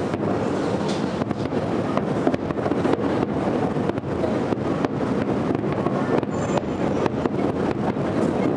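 Finale barrage of aerial firework shells bursting in quick succession, heard from afar as a continuous low rumble dense with sharp cracks and bangs.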